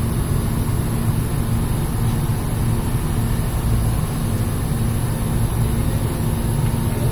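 Ship's engine-room machinery running: a loud, steady low drone with a constant hum, unbroken throughout.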